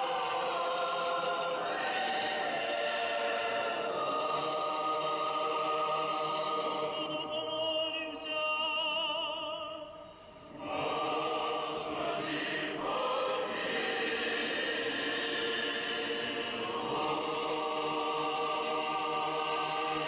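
Choir singing Orthodox liturgical chant in sustained harmony. The chant breaks off briefly about halfway through and then resumes.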